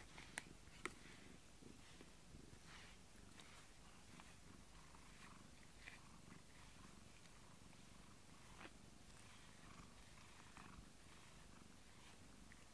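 A domestic cat purring faintly and steadily as it is stroked and groomed with a rubber brush, with soft brushing swishes and two sharp clicks in the first second.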